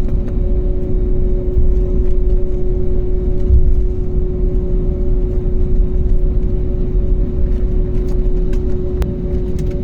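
Airliner cabin noise: a steady low rumble with a constant engine hum, with a few faint clicks near the end.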